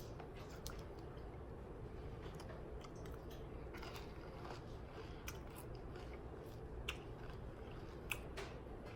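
Close-miked chewing of chips and Rotel dip: faint, scattered crunches and wet mouth clicks a second or so apart.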